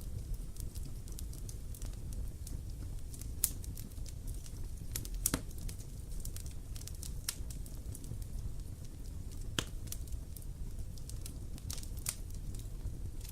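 Wood campfire crackling: irregular sharp pops and snaps, a few louder than the rest, over a steady low rumble of the burning fire.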